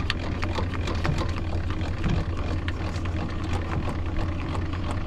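Truck engine running steadily with a low hum, with scattered light clicks on top.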